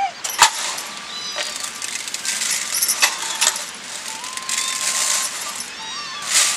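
Brass vessels clinking as rice is scooped and poured between a brass tumbler, plate and tin. Sharp metal clinks come several times, the loudest about half a second in, with short rustling pours of grain between them.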